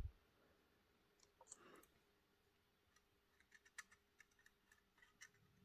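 Near silence, with a few faint clicks and a soft rustle as an all-metal model locomotive is turned over in the hand.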